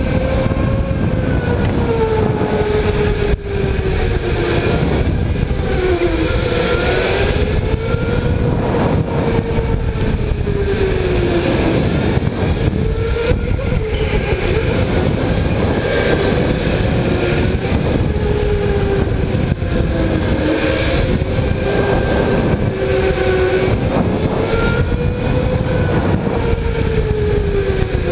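Electric go-kart running flat out around a track: its motor whine rises and falls in pitch over and over as it speeds up on the straights and slows for corners, over a heavy, steady rumble from the kart.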